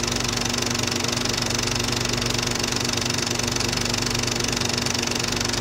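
Film projector running: a steady, fast mechanical clatter over a low hum, unchanging throughout.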